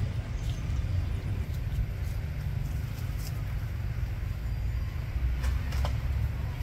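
Steady low rumble, with a few faint short clicks about three seconds in and again after five seconds.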